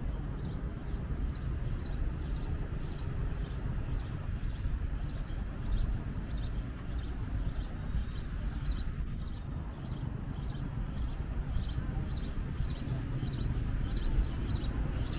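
A steady series of short high chirps, about three a second, getting louder toward the end, over a low outdoor rumble.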